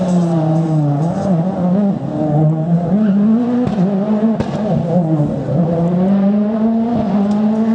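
A rally car's engine revving hard, its pitch climbing and dropping again and again as the driver shifts and lifts, with a few sharp cracks in the middle.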